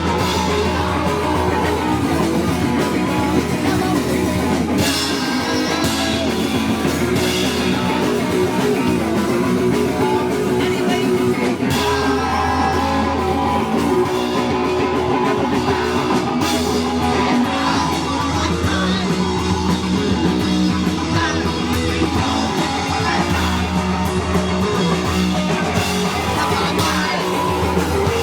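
A punk rock band playing live: guitar and a drum kit, with singing, recorded on a VHS camcorder.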